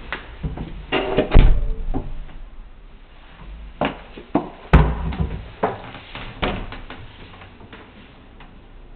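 Irregular knocks, clicks and thumps in a small bare room, like doors and fittings being handled; the loudest thumps come about one and a half and five seconds in.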